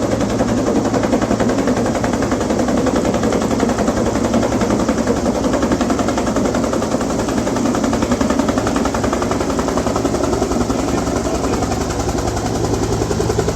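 Engine running steadily at a constant speed with a rapid, even mechanical chatter.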